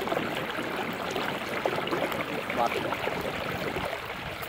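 Steady watery rushing noise while a cast net is hauled in by hand through shallow floodwater.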